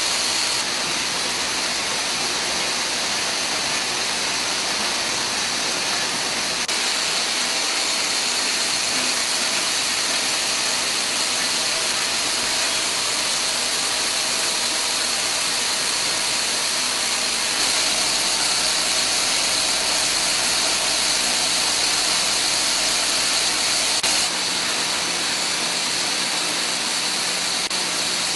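Steady industrial machine noise from syringe-making and assembly machinery, a dense hiss with a faint whine running through it. Its tone shifts slightly a few times.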